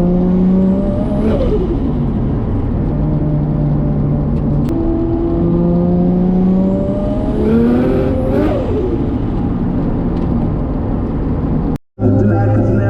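Turbocharged 2.5-litre straight-six of a 550 hp built RB25DET R33 Skyline pulling hard under boost, twice. The engine note and a high turbo whistle climb together, and each pull ends as the revs drop sharply on lift-off.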